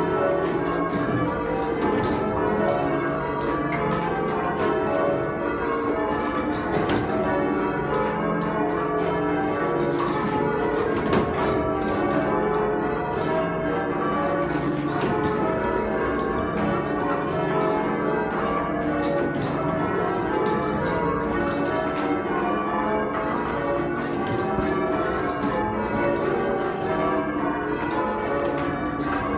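Change ringing on a heavy ring of eight church bells (25 cwt tenor, in C#). The bells strike one after another in a continuous, even stream of overlapping ringing tones.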